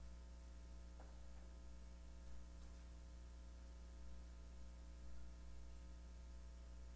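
Near silence with a steady low electrical mains hum and its overtones.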